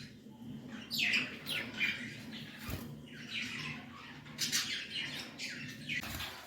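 Pet budgerigars chirping in short, scattered calls, some falling in pitch, with a faint low hum underneath.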